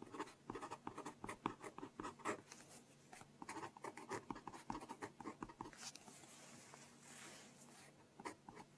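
Pen writing on paper at close range, a run of short scratchy strokes as the date is filled in on a library borrowing record. The strokes thin out to soft rustling near the end.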